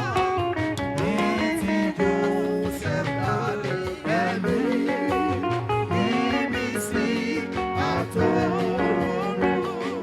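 Live music: a voice singing over a band with guitar, running without a break.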